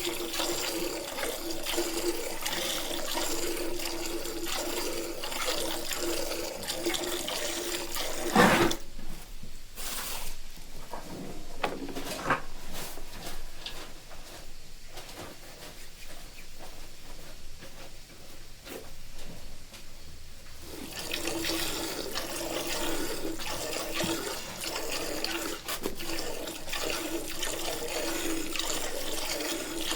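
Hand milking of a cow: streams of milk squirting into a pail in a steady, rapid liquid hiss. About eight seconds in there is a loud sudden sound. After it the squirts come quieter and more separately for about twelve seconds, then dense again.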